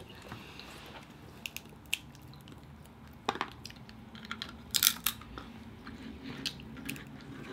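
Cooked Dungeness crab being picked apart by hand and its meat chewed close to the microphone: scattered soft clicks and crackles of shell with wet chewing, the loudest cluster about five seconds in.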